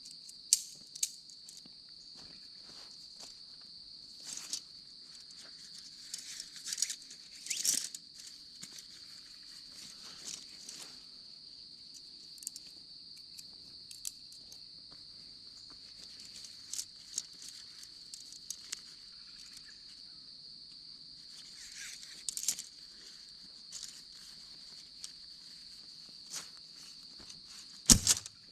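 A steady, high-pitched chorus of crickets, with scattered rustles and clicks from tent fabric and clips being handled as a tent is taken down, and a sharp knock near the end.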